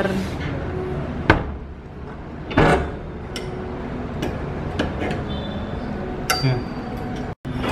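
Sharp metal clicks and clanks of a large, heavy padlock being handled: a handful of separate knocks, the loudest about a second in, and a short high squeak about six seconds in.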